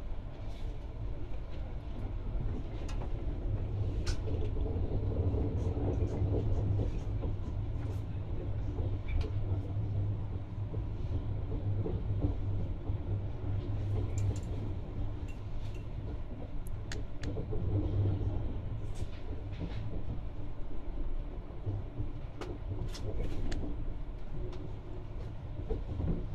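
Low rumble of a passenger train heard from inside the carriage as it pulls out of a station, a steady drone with scattered clicks and knocks from the wheels running over rail joints and points.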